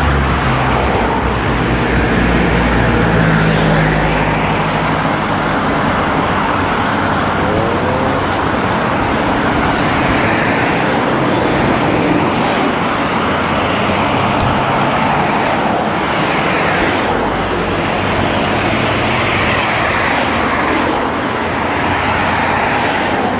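Road traffic noise as cars pass a cyclist on the road, with a vehicle's engine running close by for the first few seconds.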